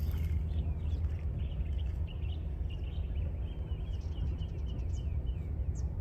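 Outdoor ambience: a steady low wind rumble on the microphone, with small birds chirping in a quick run of short notes through the middle and a few thin higher calls near the end.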